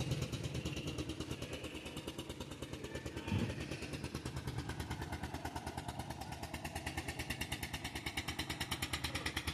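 A motorcycle engine running steadily at low speed with a rapid, even putter, and a brief low thump about three and a half seconds in.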